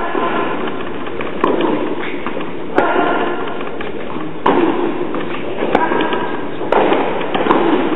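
Tennis rally in an indoor court hall: a ball struck back and forth by rackets, a sharp hit about every second and a half, each ringing on in the hall.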